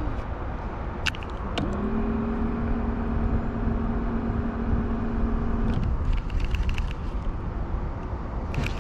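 Motorized pool float's drive motor whirring at a steady pitch for about four seconds, starting about a second and a half in and cutting off suddenly, over a constant low rumble.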